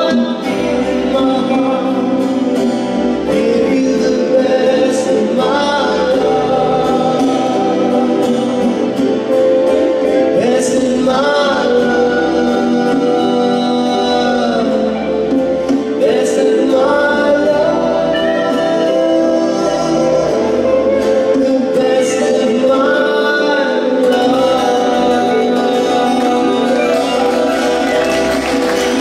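A male vocalist sings a slow song live, accompanying himself on acoustic guitar, backed by a band.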